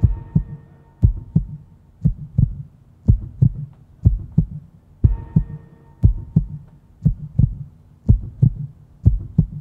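Heartbeat sound effect in a soundtrack: a steady lub-dub, two low thumps close together, repeating about once a second.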